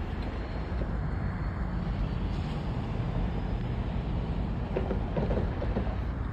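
Diesel engine of a compact hi-rail excavator running at a steady idle, a low rumble. A few light clicks come about five seconds in.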